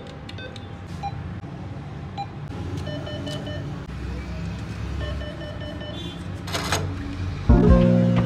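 NCR cash machine (ATM) beeping: short key-press ticks, then two longer beeps as the cash is dispensed and taken, followed by a brief burst of noise. Music comes in near the end.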